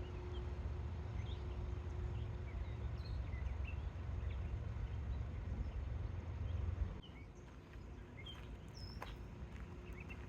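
Birds chirping in short, scattered calls over a steady low rumble; the rumble cuts off about seven seconds in.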